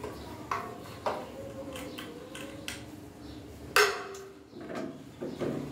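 A series of sharp clicks and clinks, several followed by a short ringing tone, the loudest about four seconds in.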